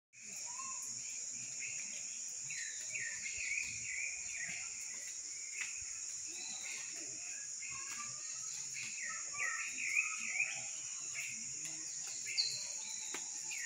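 Outdoor nature sounds: a steady, high-pitched insect drone, with repeated short bird chirps throughout.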